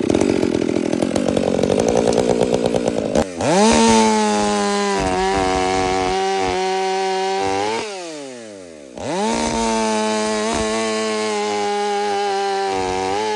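Two-stroke chainsaw engines run at full throttle. For about three seconds an engine runs rough and pulsing. Then a saw climbs quickly to a high, steady, clean pitch and holds it for several seconds before dropping back as the throttle is released, and does so a second time.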